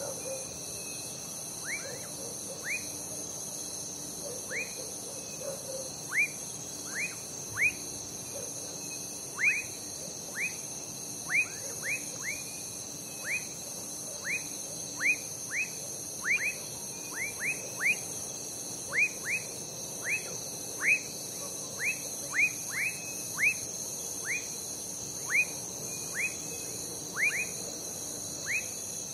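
Night chorus of crickets and other insects, a steady high shrill with a fast pulsing trill above it. Over it, frogs give short whistled calls that drop quickly in pitch, roughly one a second in irregular clusters; these are the loudest sounds.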